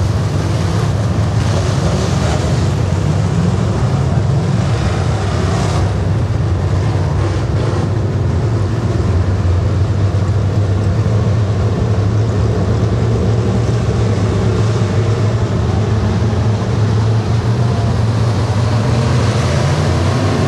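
A pack of dirt-track super stock race cars running together: a loud, steady drone of many engines at once.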